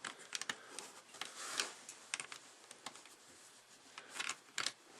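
Faint scattered clicks and short plastic scrapes as a wireless mouse's USB receiver dongle is handled and plugged into a laptop port, with a slightly louder pair of scrapes about four seconds in.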